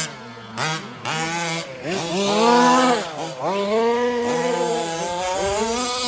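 Small two-stroke petrol engines of 1/5-scale 4WD RC race trucks, more than one at once, revving up and easing off as they race. The engine note climbs to a loud peak about two and a half seconds in, drops sharply, then rises again.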